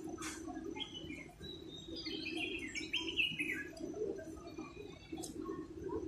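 Small birds chirping, a quick cluster of short chirps from about one to three and a half seconds in, with a couple of brief clicks and a low steady hum underneath.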